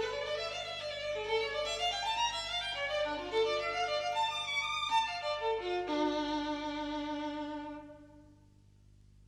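Violin music playing a melody, ending on held notes that fade out about eight seconds in, leaving a steady low electrical hum.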